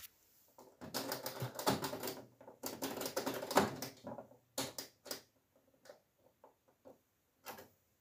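Whirlpool FL 5065 washing machine's program selector knob being turned through its detents: a fast run of ratcheting clicks for about three seconds, then slower single clicks.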